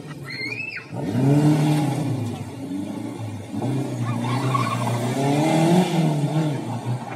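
Historic rally car's engine revving hard, its pitch climbing and dropping several times through gear changes as it drives around a cobbled square. A short high-pitched squeal comes just before the engine note starts.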